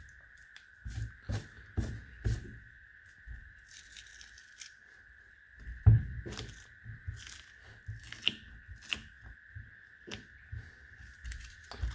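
Hands working a silicone mold and a freshly cast polyurethane resin lure: irregular tearing, peeling and scraping with scattered knocks, the loudest knock about halfway through, as the casting and its resin flash come free of the rubber.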